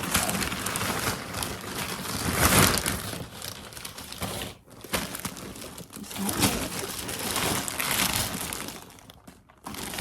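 Packaging crinkling and rustling in uneven surges as a mailed package is opened and its contents handled.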